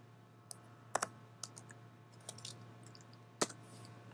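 About five short, sharp clicks at the computer used to run the slide presentation, the loudest about a second in and about three and a half seconds in. They sit over a faint, steady low hum.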